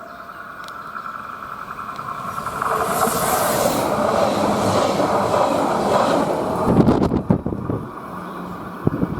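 Deutsche Bahn class 425/426 electric multiple unit passing, its wheels squealing with a steady high tone over the rolling noise, which grows loud about two and a half seconds in; a few sharp knocks near the end. The squeal is the typical flange and wheel squeal of a train in a tight curve.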